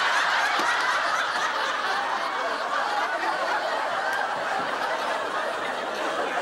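Studio audience laughing, one long continuous wave of laughter that eases off slightly.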